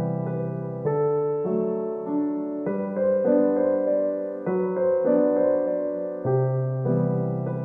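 Piano music with chords that change every half second or so.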